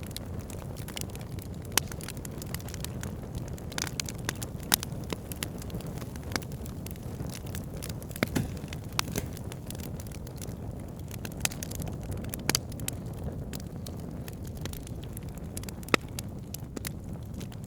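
Wood fire burning in a fireplace: a steady low rushing flame sound with frequent, irregular crackles and pops, a few of them sharp and loud.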